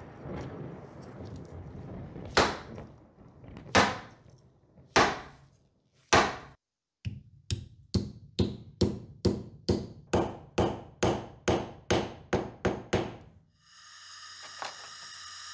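Blows on the end of a wooden hammer handle, driving it up into the eye of the steel hammer head: four spaced knocks, then a quick run of about seventeen knocks at two or three a second. A quieter steady hum follows near the end.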